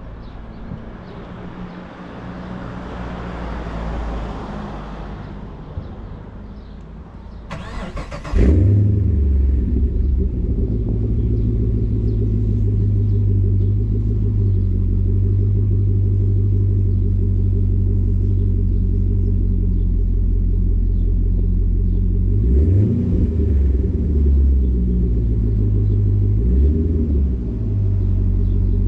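A Holden Caprice's 6-litre V8, breathing through aftermarket J pipes, being started. The starter cranks briefly about eight seconds in, the engine catches loudly and settles into a steady low idle, and a few throttle blips rise and fall near the end.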